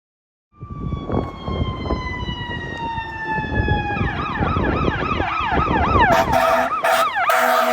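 Fire department squad truck's siren: a pitched tone falling slowly, then from about four seconds in a fast up-and-down yelp, about two cycles a second. Short air horn blasts join near the end, over a low engine and road rumble.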